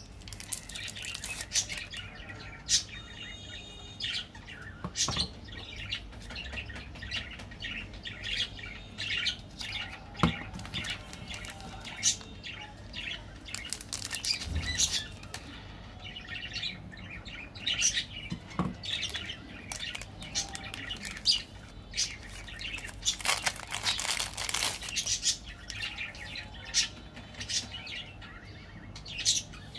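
Foil-lined plastic wrappers of chocolate-coated wafer bars crinkling and tearing as they are handled and opened by hand, in a dense run of sharp crackles.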